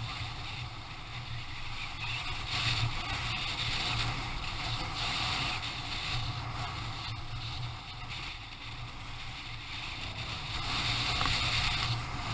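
Aprilia Tuareg 660's parallel-twin engine running while the bike is ridden off-road, under a steady rush of wind noise that swells and eases a few times.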